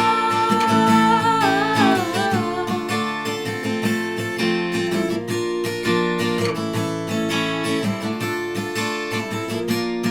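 Cover-song music: acoustic guitar strumming chords through an instrumental break, with the last sung note held with vibrato and ending about two seconds in.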